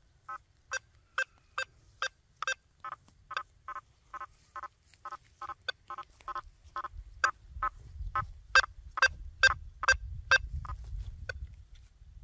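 Quest V80 metal detector with a 9-inch coil giving quick short beeps, about two a second, as it responds to targets on a nailboard. Some beeps are louder and higher than others. A low rumble of handling or wind noise rises in the second half.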